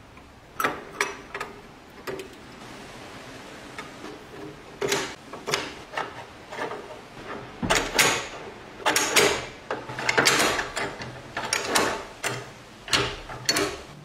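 Irregular metallic clicks, clacks and short scrapes of an old door lock's mechanism being handled and worked, coming thickest in the second half.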